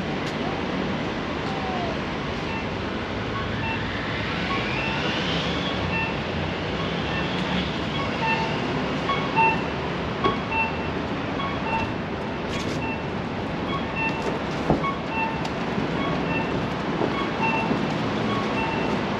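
City street traffic noise, with a rising whine a few seconds in. From about eight seconds in, a short beep repeats about twice a second.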